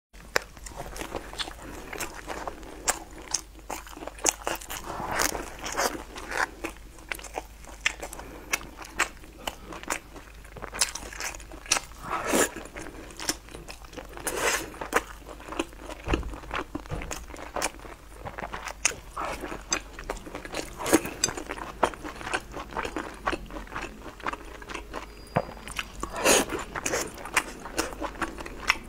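Close-miked chewing and biting: a person eating a spicy, saucy stew with chopsticks and taking bites of a flatbread. Many wet mouth clicks and smacks come at an irregular pace throughout.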